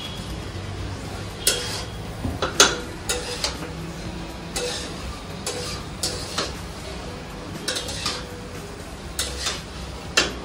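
A metal spoon stirring in cookware, with irregular clinks and scrapes, some ringing briefly, about one every half second to a second. A low steady hum runs underneath.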